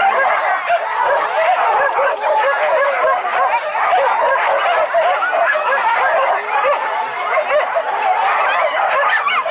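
A pack of hunting dogs yelping and baying without pause, many high yelps overlapping, in full cry on the chase of a wild boar.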